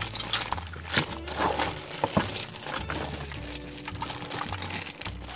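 Clear plastic bags crinkling and rustling as they are lifted out of a box and handled, over light pop background music with a steady bass beat.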